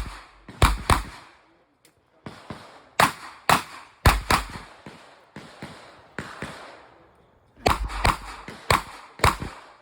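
Revolver gunshots fired in a USPSA stage: fast pairs of shots with fainter, more distant-sounding cracks between them, and a pause of about a second and a half midway before another quick run of shots.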